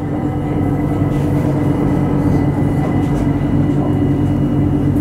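BTS Skytrain electric train running at a steady pace, heard from inside the car: a continuous rumble of wheels on rails with a steady electric motor whine of several unchanging tones.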